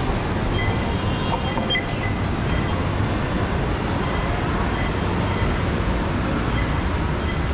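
Steady vehicle and road-traffic noise: a low rumble under an even hiss.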